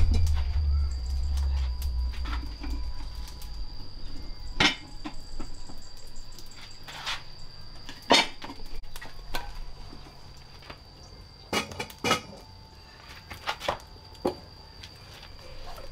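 Pots, dishes and utensils clinking and knocking now and then, a dozen or so separate sharp knocks, over a faint steady high tone.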